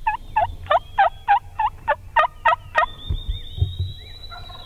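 Turkey yelping: a loud, even series of about ten notes, about four a second, each breaking from high to low, lasting around three seconds. Fainter turkey calling follows near the end.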